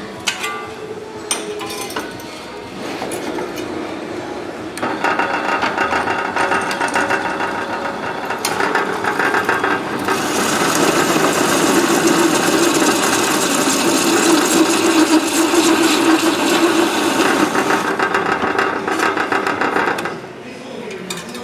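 A few metal taps and clinks, then a power tool running hard on sheet metal with a dense, rattling buzz that grows louder partway through and cuts off suddenly near the end.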